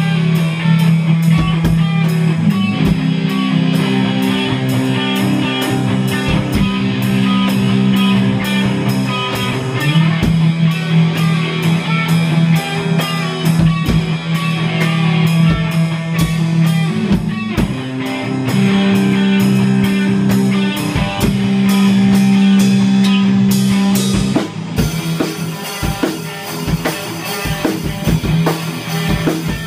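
Live rock jam: electric guitars and a Yamaha drum kit playing together with a steady beat, loud and continuous. Near the end the level dips a little and the cymbals ring on more evenly.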